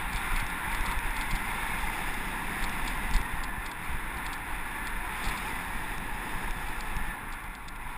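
Mountain bike rolling fast down a dirt downhill trail: a steady rush of tyre noise and wind on the microphone, with small rattles and knocks from the bike over bumps and a sharper knock about three seconds in.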